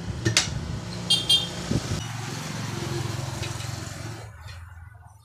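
A motor vehicle's engine rumbling, fading away about four seconds in, with a few sharp metallic clinks of steel tire levers against the wheel rim, a ringing pair about a second in.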